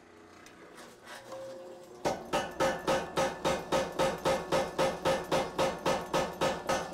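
Rapid, evenly spaced hammer blows on red-hot 52100 steel held on the anvil, about four ringing strikes a second, starting about two seconds in, as the Bowie knife blade is drawn out.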